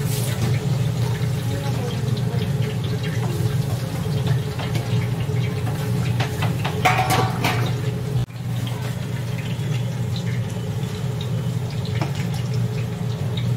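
Broth sloshing as it is scooped and poured with a steel ladle-pot into a stainless stockpot, with short metal clinks of utensils, over a steady low hum.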